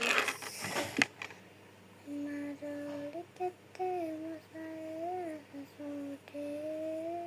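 A child humming a tune: a string of held notes that glide up and down, starting about two seconds in. Before it, in the first second, come a few sharp clicks and a rustle.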